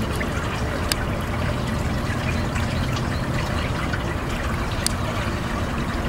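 Small brook trickling steadily over stones in its rock-lined channel, with a sharp tick about a second in and another about five seconds in.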